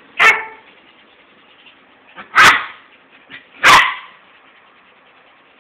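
Dogs play-fighting, giving three loud, sharp barks: one just after the start, then two more over a second apart later on.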